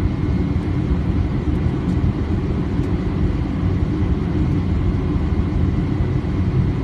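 Steady rushing noise on an aircraft's flight deck on final approach: airflow and engine noise heard inside the cockpit, with a faint steady high tone.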